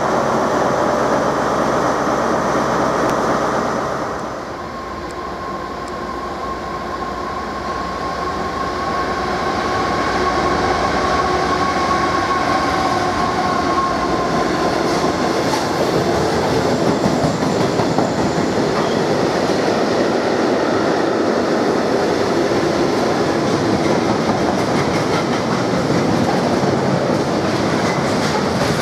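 An InterCity 125 (Class 43 HST) power car's diesel engine running close by for the first few seconds. Then a long freight train of steel-coil wagons rolls past, wheels clicking over the rail joints, with a drawn-out wheel squeal for several seconds early in the pass.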